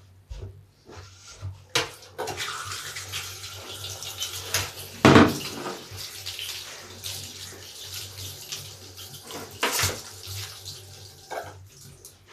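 A large soapy bath sponge being kneaded and squeezed with soap remnants, making wet squelching sounds as water runs out of it. It starts about two seconds in, with the loudest squeeze about five seconds in and another strong one near ten seconds.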